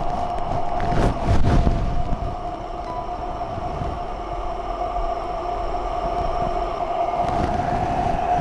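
Oxygen flowing from a portable aluminium cylinder's regulator through the tube into a nebulizing mask: a steady hiss with one steady tone on top. A few soft knocks and rustles in the first two seconds as the plastic mask is fitted and its strap adjusted.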